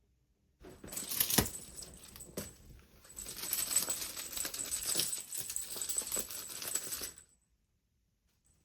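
Cat wand toy jingling and rattling as it is shaken and batted: a rapid run of small metallic clinks over a thin ringing tone, starting just under a second in, easing off briefly partway through, then stopping abruptly about a second before the end.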